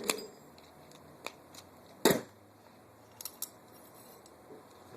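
A few sharp clicks and knocks of small metal and plastic airsoft rifle parts being handled as the hop-up unit is worked out of the receiver. The loudest knock comes about two seconds in.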